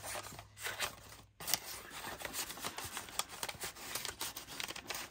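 Paper rustling and crinkling, with small irregular clicks and scrapes, as a folded dollar bill is slid into a kraft paper pocket folder.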